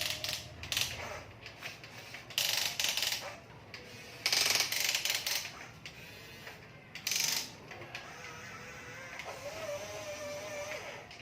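Small electric gear motors of an RC construction toy whirring in several short bursts, with a steadier, higher whine near the end.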